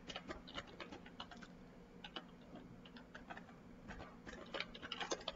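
Typing on a computer keyboard: a faint run of quick, light keystrokes, with a denser flurry near the end.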